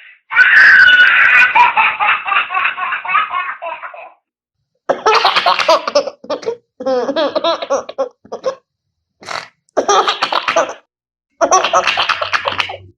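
A baby laughing and giggling: one long laugh of about four seconds, then a string of shorter laughing bursts, each cut off by dead silence.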